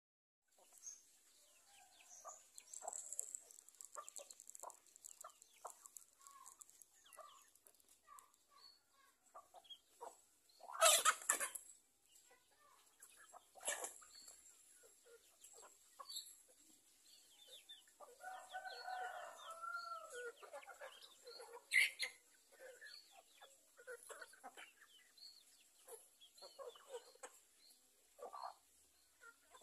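A flock of free-range village chickens clucking with many short calls as they forage and peck at grain. A longer, drawn-out call comes about eighteen seconds in, and a few louder sudden sounds stand out near eleven and twenty-two seconds.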